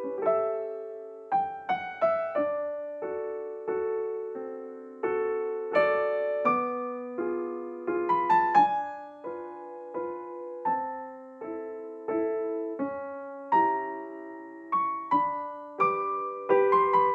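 Solo piano playing a gentle, slow waltz: a melody over decaying chords, with notes struck in groups and dying away between them.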